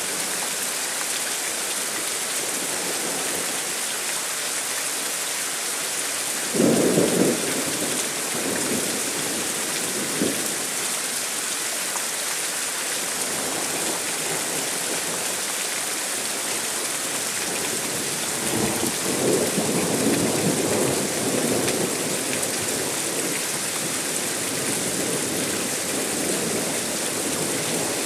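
Steady heavy rain hissing through a thunderstorm, with thunder: a sudden sharp clap about a quarter of the way in, then a longer rolling rumble in the second half.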